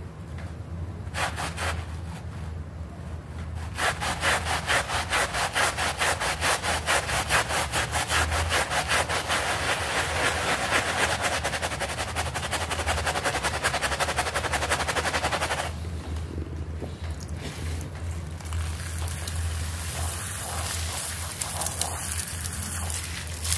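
Bristle hand brush scrubbing a soapy, foam-covered rug in fast back-and-forth strokes, about seven a second, from about four seconds in. The scrubbing stops about two-thirds of the way through, leaving softer wet rubbing by hand, with a steady low hum underneath.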